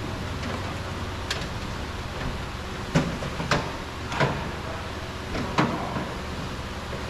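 Several sharp clicks and knocks, spaced irregularly about a second apart, from parts of a car's front door being handled during removal of the handle, over a steady low background hum.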